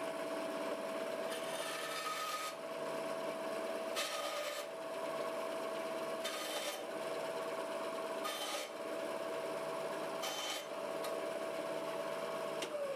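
9-inch Task Force band saw running with a steady motor hum while its blade cuts a thin strip of wood in five short cuts, the first test cuts on freshly fitted tires. Near the end the motor winds down with a falling hum.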